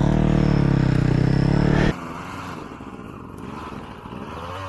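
Dirt bike engine running loud and close, holding a fairly steady pitch, then cutting off suddenly about two seconds in. A fainter dirt bike engine follows, revving with rising pitch near the end as the bike climbs a slope.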